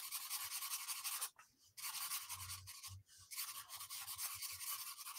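Black felt-tip marker scratching across sketchbook paper in quick short strokes, sketching in fur. The scribbling comes in three bouts with brief pauses just over a second in and about three seconds in.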